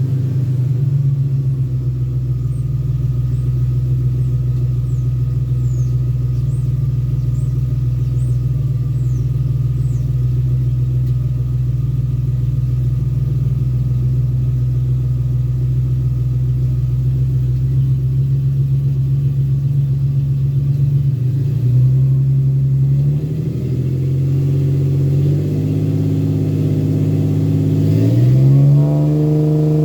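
2001 Ford Ranger's 4.0 V6 engine running at a steady idle. About two-thirds in, the revs are raised in steps, and near the end the pitch rises and holds higher.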